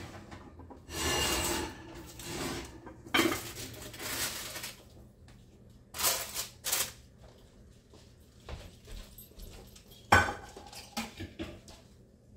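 Cookware being handled at an open oven: a glass baking dish and a ceramic dish set down and shifted, with scraping and knocking sounds and a sharp clank about ten seconds in.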